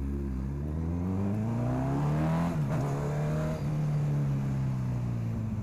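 Honda CB1000R inline-four engine through an aftermarket sport exhaust, its pitch rising under acceleration for about two and a half seconds, dipping sharply at a gear change, then falling slowly as the throttle eases off.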